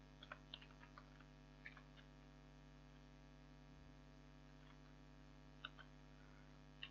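Near silence: a faint steady electrical hum with a few faint computer keyboard key clicks, a cluster in the first second or so and a couple more near the end.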